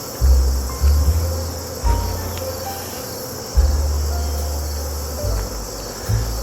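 Honey bees humming around an open hive, with background music's low bass notes starting sharply and fading every second or two over it.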